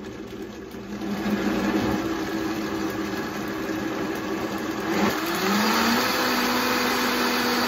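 Vitamix blender motor running fast, blending a thick smoothie to mix in cacao nibs. It speeds up about a second in, then about five seconds in the pitch dips and climbs again to a steady higher whine.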